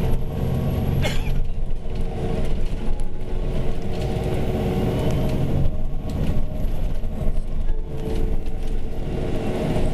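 City bus driving through town streets, heard from inside the cabin: a continuous low rumble from the drivetrain and tyres with a steady hum over it.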